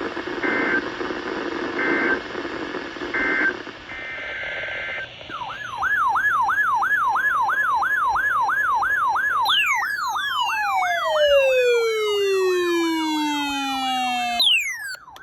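Weather-radio static with four short bursts of screeching digital alert data tones, then an electronic siren tone warbling up and down about three times a second. A second tone sweeps steeply down in pitch beneath the warble from a little past the middle, and both cut off abruptly near the end.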